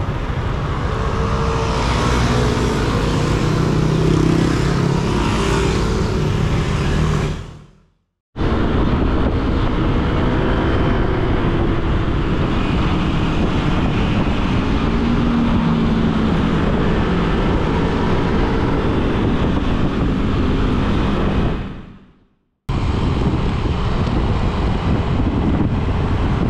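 Motorcycle running under way, engine mixed with wind and road noise as heard from a camera mounted on the bike. The sound fades out to brief silence twice.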